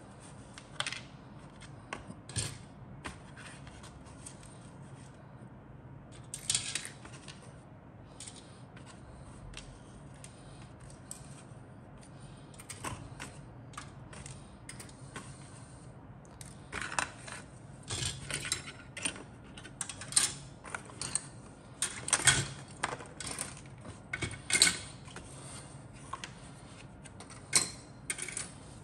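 Small plastic model-kit parts and sprues being picked up and handled in a cardboard box: irregular light clicks, clatters and rustles, busiest in the second half.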